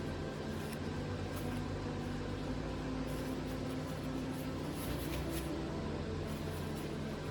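Wood lathe running steadily: an even motor hum.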